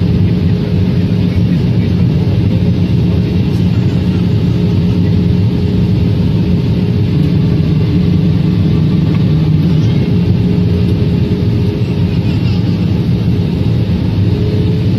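Steady cabin drone of a jet airliner in flight, engine and airflow noise heard from inside the cabin, with a steady hum that rises slightly in pitch near the end.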